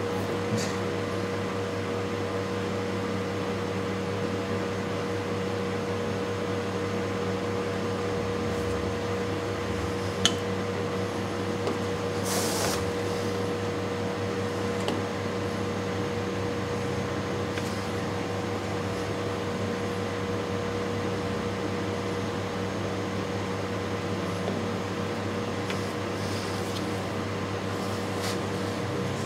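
Steady machine hum, like a fan or air-conditioning unit running, with one sharp click about ten seconds in and a short hiss a couple of seconds later.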